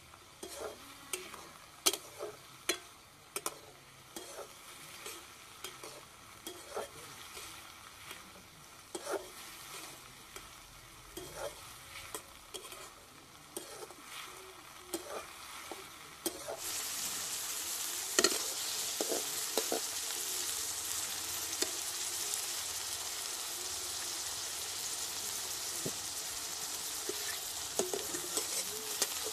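A metal spatula scraping and knocking against a metal wok as onions and chopped vegetables are stirred in oil. A bit past halfway, a steady sizzle of frying comes in suddenly and loud, and the scrapes carry on over it.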